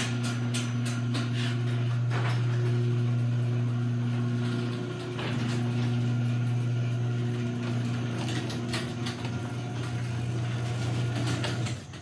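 Overhead garage door opener motor humming steadily as it raises a sectional door, with scattered clicks and clacks each time a roller bearing passes a joint where the vertical track has shifted out of line. The motor stops just before the end.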